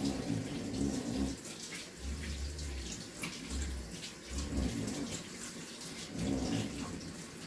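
Kitchen tap running into a stainless steel sink while hands are washed under it, the splashing rising and falling as the hands move in the stream.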